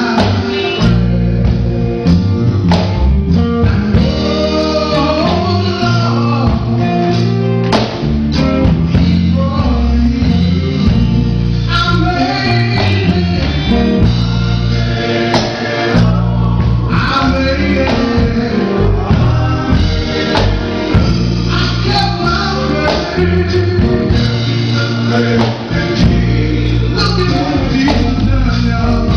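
Gospel song with a male lead singer over a full band, with bass and a tambourine.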